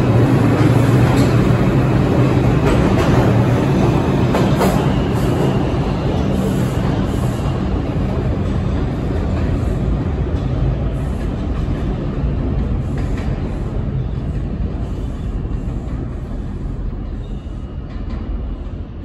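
New York City subway 4 train pulling out of the station and drawing away into the tunnel: low rumble, motor hum and wheel clatter that slowly fade as it goes.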